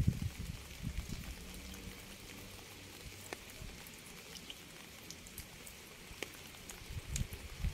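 Steady rain hissing, with scattered individual raindrops ticking sharply through it. A low rumble under the rain dies away over the first couple of seconds and starts up again near the end.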